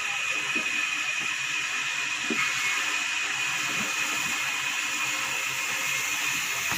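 Sawmill machinery running: a steady hiss with a high, steady whine.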